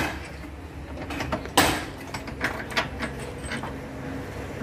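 Knocks and taps from a wooden speaker baffle board being handled and fitted in a vehicle's rear, the loudest knock about one and a half seconds in and a few quicker ones a second later, over a low steady hum.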